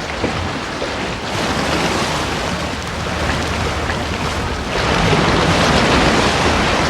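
Steady rushing ocean-water noise with no whale call in it, growing louder about five seconds in.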